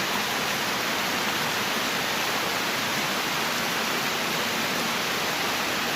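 Steady, even rush of river water pouring over a small dam.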